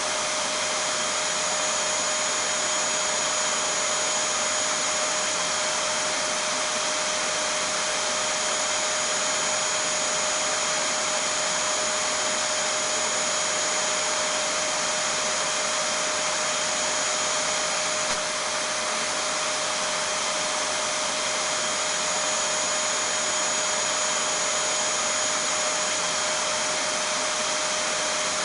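Vacuum cleaner running continuously at a constant level: a steady rushing noise with a high whine and a lower hum held at one pitch.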